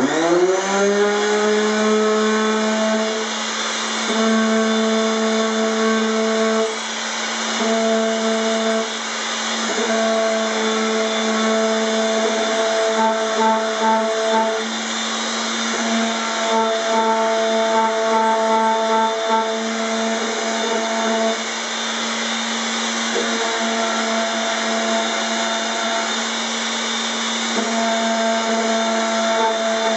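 Electric palm sander starting up, its motor rising quickly in pitch and then running with a steady hum whose tone shifts slightly as it is worked. It is lightly sanding the first coat of finish on an oak panel with 220-grit paper, knocking down dust specks between coats.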